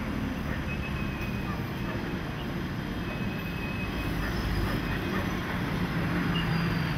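Steady low rumble and hiss of a moving vehicle, even in level throughout.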